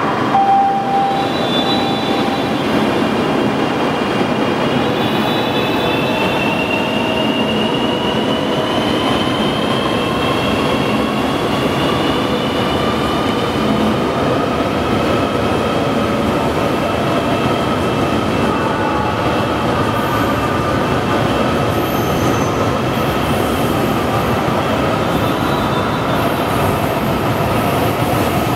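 CRH380A high-speed electric train pulling out along the platform and gathering speed: a steady loud rush of running noise, with a whine that climbs in pitch over the first ten seconds or so.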